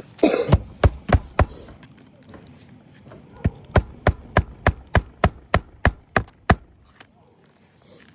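Hammer driving roofing nails through a new asphalt shingle: a quick set of four strikes, a pause, then a steady run of about eleven blows, roughly three a second.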